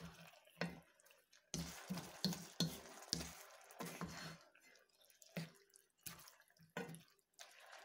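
A wooden spatula stirring and turning pasta in a creamy sauce in a stone-coated wok: irregular wet, squelching strokes and light scrapes against the pan, about a dozen in all.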